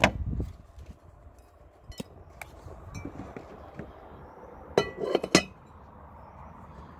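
Light clinks and taps on a glass dish as black beetles are tipped into it: a few single ticks, then a louder cluster of clinks about five seconds in.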